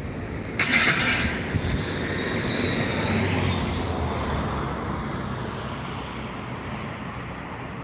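A vehicle passing by: a sudden rush of noise about half a second in, then engine and road noise that slowly fades.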